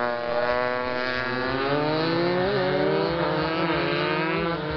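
Several racing motorcycle engines accelerating, their pitch climbing steadily as they pull away, with a drop in pitch near the end.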